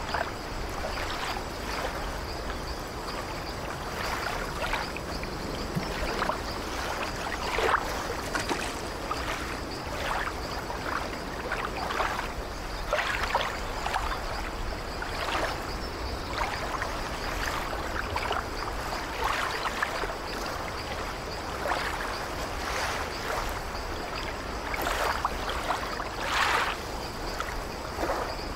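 Sea waves breaking and washing through foam, a steady rush of water with frequent short splashes.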